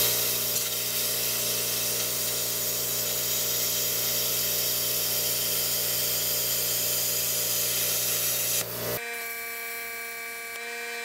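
Handheld plasma cutter cutting steel plate: a loud, steady hiss of the arc and air with a steady hum under it. About nine seconds in it drops to a quieter, thinner steady drone.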